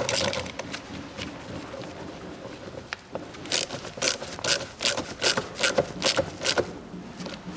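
A nut driver tightening a hose clamp on the air intake duct, with a run of sharp clicks at about three a second from about three and a half seconds in until shortly before the end.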